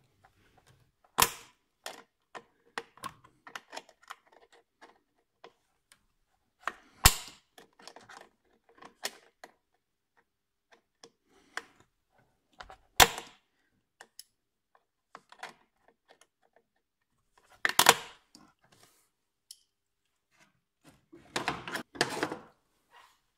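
Sharp clicks and knocks of hand tools at work on a car engine. Four loud clicks come about six seconds apart with lighter ticks between them, and a cluster of knocks follows near the end.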